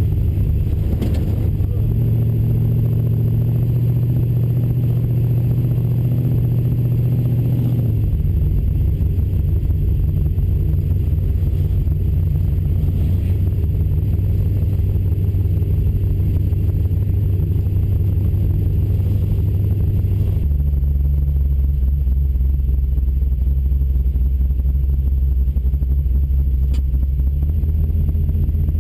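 Small-block Chevy V8 of a 1971 El Camino Super Sport running steadily while driving on the road. Its pitch drops in a step about 8 seconds in and again about 20 seconds in.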